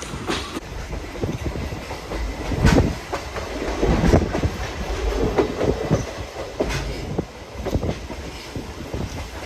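Train running along the track: a steady low rumble with irregular knocks and clacks from the wheels and running gear.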